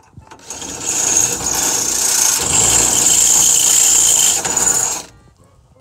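Power tool motor running steadily with a high whine, starting about half a second in and stopping about five seconds in.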